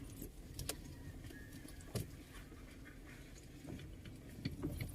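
Road rumble inside a moving car's cabin, with scattered small clicks and rattles.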